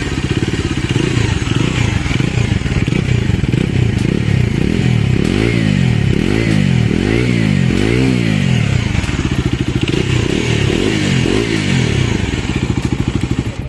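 Bajaj Dominar 250's single-cylinder engine running in neutral and revved through its twin-outlet exhaust. In the middle stretch it gives a run of throttle blips, each rising and falling in pitch. The exhaust note is bassy and strong.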